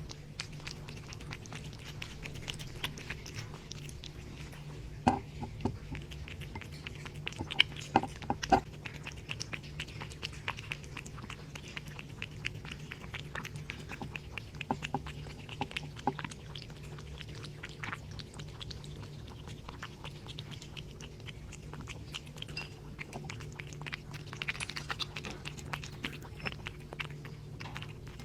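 Cat eating from a bowl of soupy wet food: a steady run of small wet lapping and chewing clicks, with a few louder clicks about five and eight seconds in. A steady low hum runs underneath.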